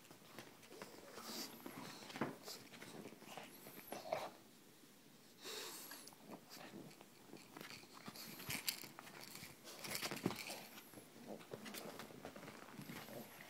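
An English bulldog and a pug moving about at close range, making huffing, snuffling and mouth noises, with scattered small clicks; briefly quieter about a third of the way through.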